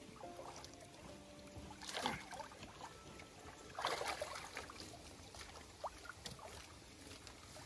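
Water splashing and sloshing as a large koi is handled in a tub of water, lifted out with water pouring off it, and lowered into a transport tank, with louder splashes about two and four seconds in.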